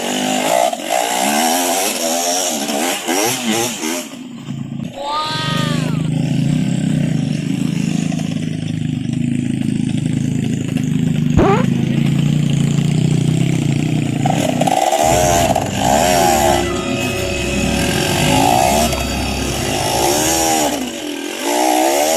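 Dirt bike engines revving hard up and down on a slippery, muddy hill climb, steadier for a stretch in the middle, with a sharp click about halfway through.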